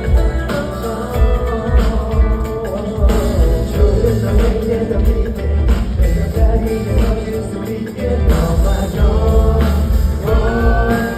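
Live Korean pop song played loud through a concert sound system: singing over a backing track with a heavy, pulsing bass beat.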